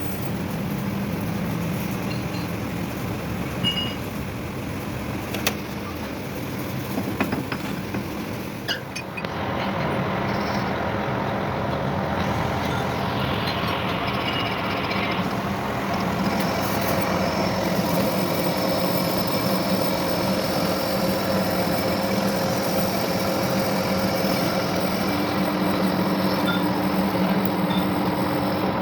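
Workshop machinery running steadily, with a few light clicks and knocks. About nine seconds in, a motor starts and runs on with a steady hum made of several tones, a little louder than before.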